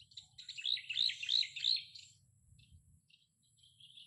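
A bird singing: a quick run of four or five repeated sweeping chirps in the first two seconds, then fainter chirps near the end.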